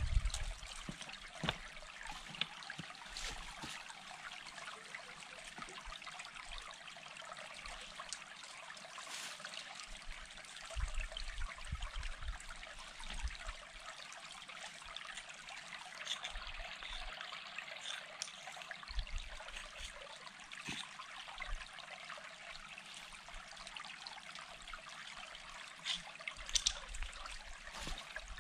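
Steady trickle of running water, with scattered light knocks and rustles as stones are handled and she moves over the slope.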